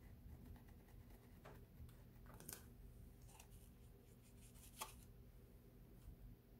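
Near silence: room tone with a low hum and a few faint, brief ticks and scratches.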